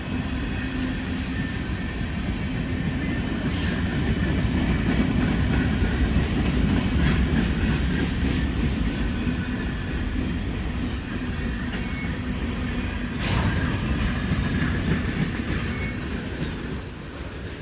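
Railroad cars rolling past, a steady rumble with a few sharp clicks of wheels over the rail joints, easing off near the end as the tail of the train goes by.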